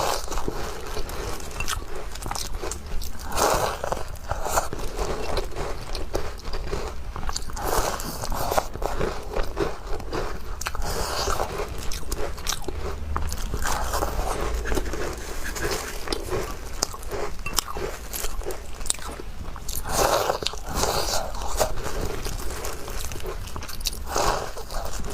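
Close-miked chewing and crunching of walnut cookies, with dense small crackles and louder spells of chewing every few seconds.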